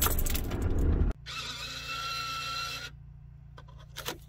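DAF lorry's diesel engine running at idle, stopping abruptly about a second in as it is switched off at the key. A quieter steady hum and whine follows, and a few light clicks near the end as a driver card goes into the tachograph slot.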